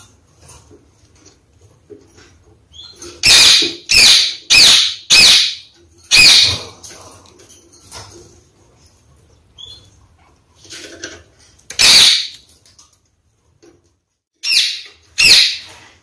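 Red-fronted kakariki giving loud, short calls: a quick run of five about three seconds in, one more a little before the end, and two close together near the end.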